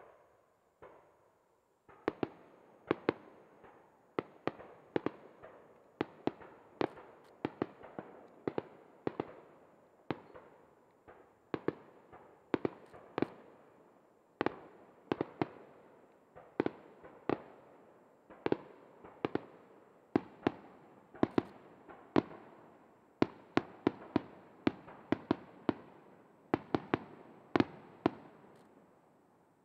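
Star mine fireworks: a rapid run of aerial shells bursting, about two sharp bangs a second, each with an echoing tail, with a couple of single bangs before the barrage gets going.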